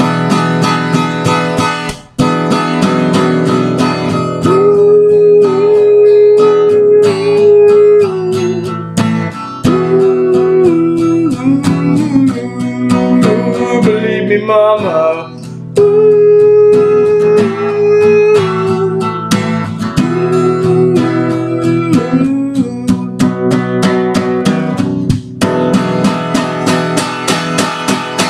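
Steel-string acoustic guitar strummed steadily, with a man's voice singing a long wordless melody over it, held notes gliding between pitches, and a sung "mama" about halfway through.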